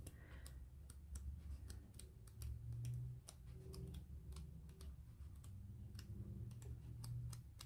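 Pages of a thick sticker book being flicked through quickly under the thumb, each page edge giving a faint, quick tick in an irregular patter, over a low steady hum.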